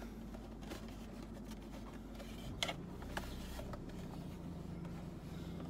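Handling noise from an aftermarket plastic and leatherette armrest console being turned over in the hands: a few light clicks and rubs, over a low steady hum.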